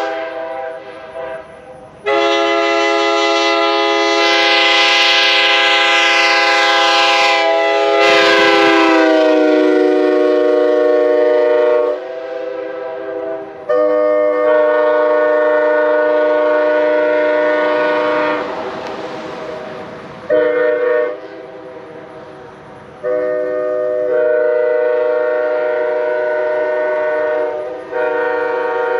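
Nathan K5H five-chime air horn (bells 1, 2, 3, 4, 5) blown in several long blasts, the first lasting about ten seconds, a short one in the middle, and the last running on past the end; each blast holds one steady chord of several notes. The chord is sharp and in tune, its number 5 bell machined back to factory specs.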